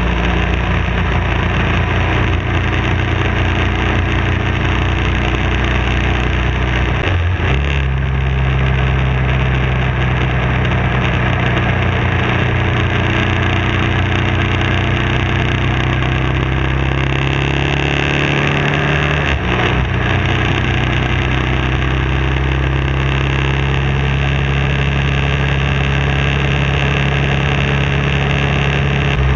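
BMW F650 motorcycle engine running steadily at road speed, with road and wind rush. The engine note steps up about a quarter of the way in and shifts again past the middle.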